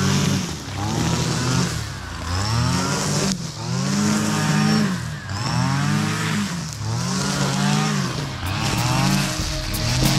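A small two-stroke brush cutter's engine is revved up and dropped back again and again, about every second and a half, as the grass is cut in sweeps.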